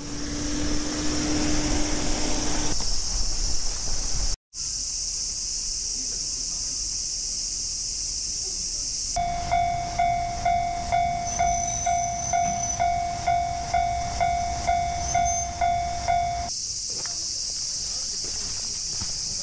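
Cicadas droning as a steady high hiss throughout. From about nine seconds in, a railway level-crossing warning bell rings, about two clangs a second, for some seven seconds and then stops. A steady low hum sits under the first couple of seconds.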